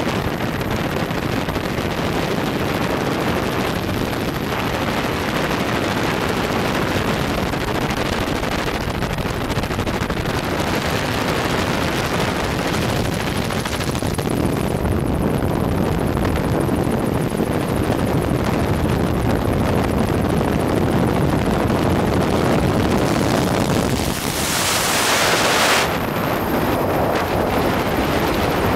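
Bell 206 JetRanger-type helicopter in flight, its rotor and turbine making a steady, even noise as heard on board during the climb-out after take-off, with wind rushing over the microphone. About 24 seconds in, a louder hiss of wind lasts for about two seconds.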